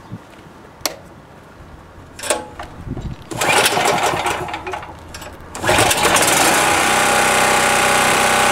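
Champion 3400-watt portable generator's single-cylinder engine pull-started with its recoil cord: a couple of loud pulls, then it catches about two-thirds of the way in and runs steadily. It is warm from running, which can make it harder to start.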